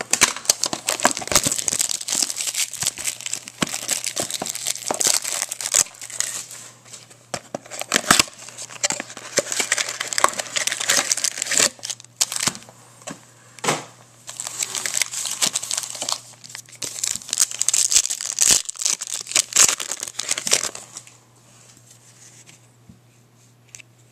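Plastic trading-card packaging being torn open and crinkled by hand, dense crackling that stops about three seconds before the end.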